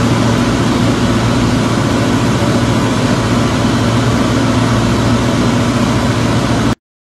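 Single-engine light airplane's engine and propeller droning steadily, heard inside the cockpit; the sound cuts off suddenly near the end.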